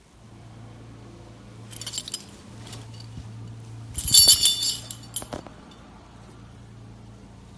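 Metal tag and buckle on a serval's collar jingling: a short burst about two seconds in, then a louder one about four seconds in as the cat moves its head.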